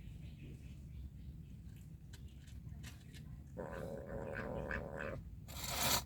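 A cat makes a drawn-out call for over a second about midway, and a short, loud rushing noise follows near the end.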